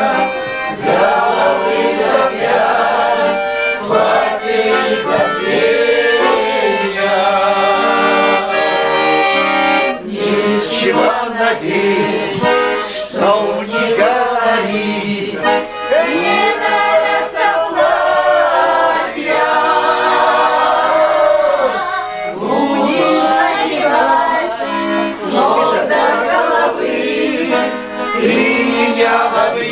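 Accordion playing with several voices singing along together.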